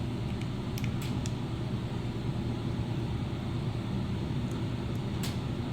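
Steady low rumble of room background noise, with a few faint light clicks of small handled objects about a second in and again near the end.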